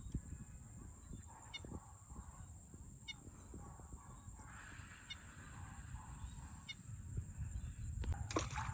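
Domestic geese honking at intervals over a steady high-pitched whine, with a sudden burst of noise near the end.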